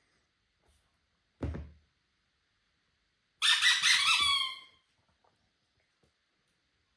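Squeaky dog toy squeezed in the hand: a short squeak about a second and a half in, then a longer, high squeak lasting over a second that drops in pitch as it ends.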